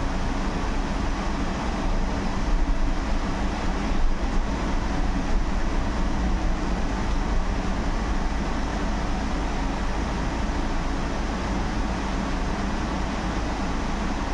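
Interior noise of a Solaris Urbino 18 IV electric articulated bus under way: a steady low rumble of tyres and road with a faint steady whine. There are two small knocks about two and a half and four seconds in.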